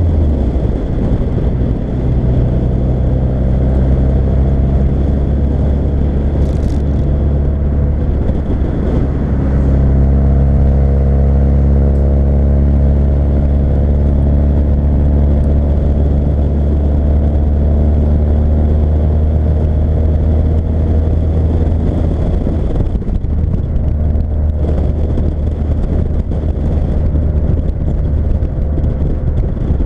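Fiat Coupé 1.8 16v four-cylinder engine pulling the car along at fairly steady revs. The revs drop at the start and shift again about ten seconds in, hold level for a long stretch, then begin to rise near the end.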